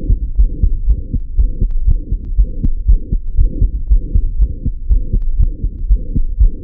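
Stethoscope recording of the heart of a child with a small ventricular septal defect: quick, regular heartbeats, about three a second, each carrying the 'pshum' of the defect's high-pitched murmur.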